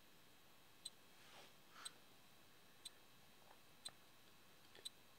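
A clock ticking faintly and evenly about once a second, with soft scratches of a pen writing on paper in between.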